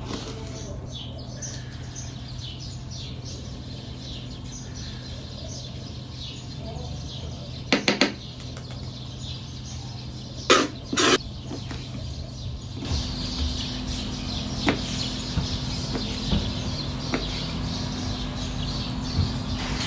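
Kitchen knife cutting a red chili pepper on a plastic cutting board: a quick cluster of sharp knocks about eight seconds in, two more a few seconds later, then lighter taps of the blade, over a steady low hum.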